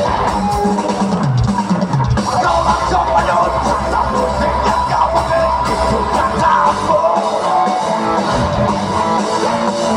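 Live rock band playing loud through a festival PA, heard from within the crowd: electric guitars, bass and a drum kit. The bass thins out briefly about seven seconds in.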